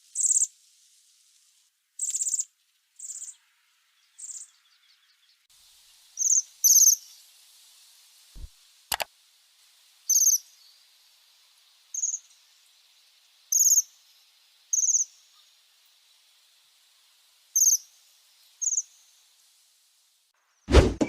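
A small bird giving short, high-pitched chirps, repeated at irregular gaps of about one to two seconds, with a sharp click about nine seconds in.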